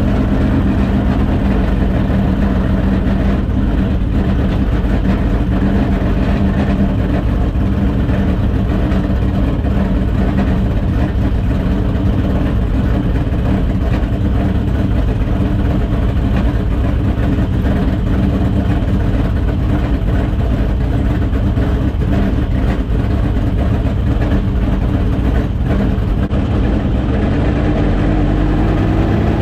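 Dirt late model race car's V8 engine running steadily at low speed, with the revs rising slightly near the end.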